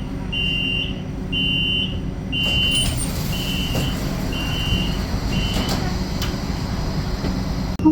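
Tram door warning beeps: a high electronic beep about once a second, sounding some six times and then stopping, over the steady low hum of the stopped tram.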